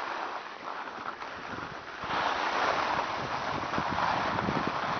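Wind rushing over the microphone and skis hissing on groomed snow during a downhill run, getting louder about two seconds in.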